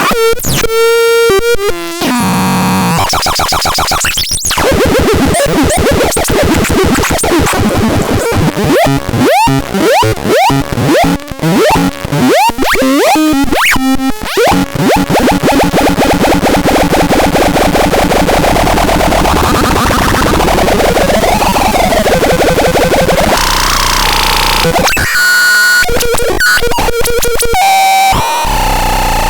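Harsh, glitchy electronic synthesizer noise: dense buzzing with quick falling pitch sweeps, a steadier buzzing stretch in the middle, and abrupt stop-start cuts.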